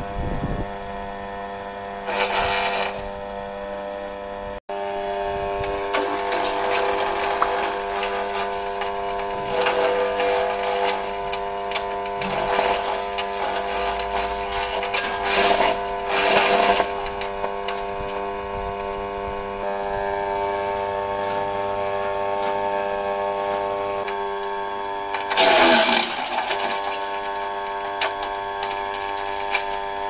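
Forest Master FM4DDE electric wood chipper's 2800-watt motor running with a steady whine. Several stretches of crunching come over it as leafy branches are chipped by the drum, the loudest near the end.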